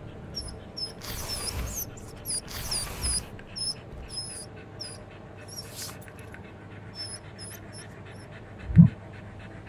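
A dog sniffing in short bursts and panting, with short high chirps over it and a low thump near the end.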